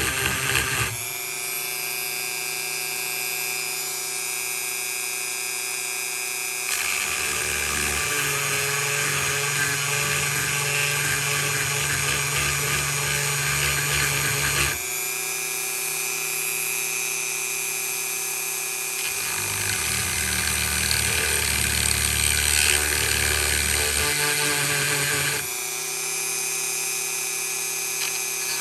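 Dremel rotary tool running at high speed, grinding a sharpening choil into a steel knife blade. Its whine changes in pitch and level every few seconds as the tool is pressed in and eased off.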